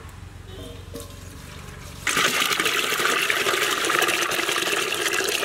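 Water poured from a brass pot into a large metal cooking pot: a steady stream splashing into the water already in the pot. It starts suddenly about two seconds in.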